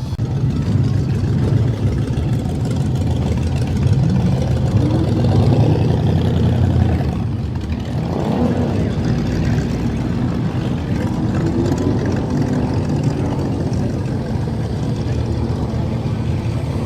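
Car engines running with a deep, steady rumble, the revs rising and falling a few times.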